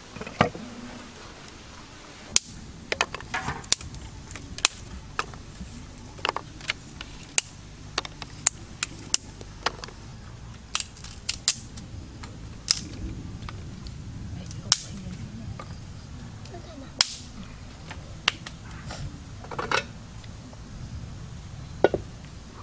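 Wood fire in a clay stove crackling, with sharp, irregular pops and cracks over a low steady rumble.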